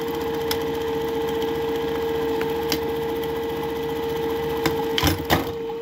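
Juki 761 lockstitch buttonhole machine sewing a buttonhole, a fast, even stitching chatter over the steady hum of its motor, ending with a couple of clunks about five seconds in as the cycle stops. It is a test buttonhole sewn with the upper screw tightened to widen the zigzag bite.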